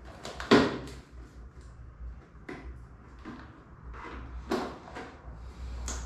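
Hard plastic parts of an Arno Ultra Silence Force 40 cm table fan knocking and clicking as they are handled and fitted together: one loud knock about half a second in, then several lighter knocks and scrapes.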